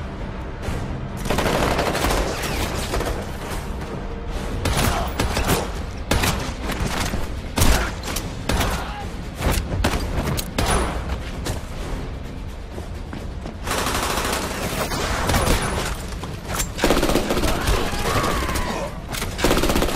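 Action-film gunfire: rapid shots and automatic bursts, dense from about a second in, mixed over a steady music score.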